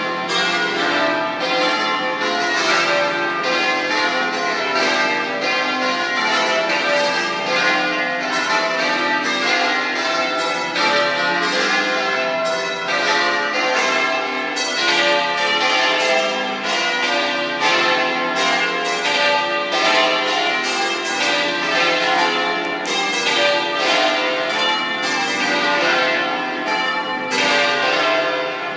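Full peal of a seven-bell concert in C: the three largest bronze bells swung in the Treviso style in synchrony and the four smaller ones swinging freely, all electrically driven. Many strokes overlap without pause into one continuous ringing.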